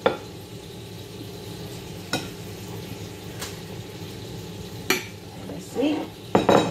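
Metal spoon stirring torn injera in a bowl, clinking sharply against the bowl about four times, with a louder clatter near the end, over a steady low hum.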